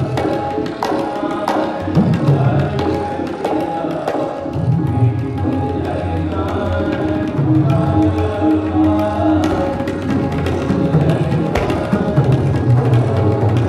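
Tabla and harmonium playing Sikh kirtan accompaniment. Quick tabla strokes run over steady harmonium chords, and some of the deep bass-drum strokes slide up in pitch.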